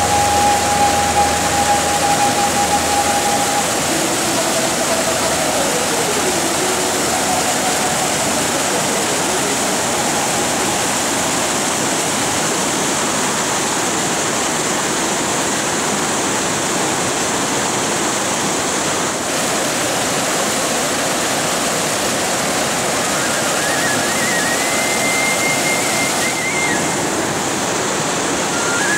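Mountain river rushing over rocks, a steady even rush of water. Faint high held notes of background music sound over it in the first few seconds, sliding down, and again near the end.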